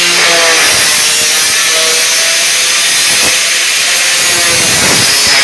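Angle grinder cutting through sheet aluminum siding: a loud, steady, hissing grind with a whine whose pitch wavers as the disc bites into the metal.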